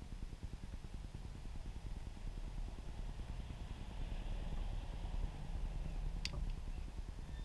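Wind buffeting the microphone, a low, unsteady rumble, with one sharp click about six seconds in.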